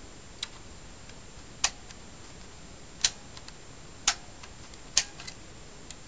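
Four sharp mechanical clicks about a second apart, with a few fainter ticks, from a Minolta Maxxum 400si film SLR body being handled with its back open.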